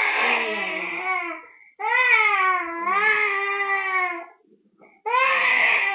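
Sick baby crying in long wails, each lasting a second or two, with short breaks for breath between them; the baby is feverish, teething, has a cough and cold, and has mouth ulcers.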